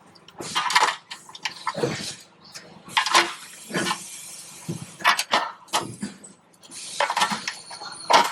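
Metal hand tools and fasteners clinking and knocking irregularly, a run of sharp metallic clinks, as the replacement starter is fitted back in.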